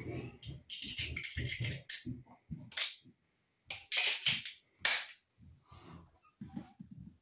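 Small hand tools (pliers and a screwdriver) clicking and knocking against a wire end and a GFI receptacle's terminal, with several short, sharp scrapes between about one and five seconds in.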